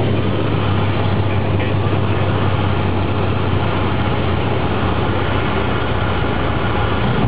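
Steady engine and propeller drone of a single-engine light airplane heard inside the cockpit as it rolls along the runway, with a strong low hum under a wide rushing noise.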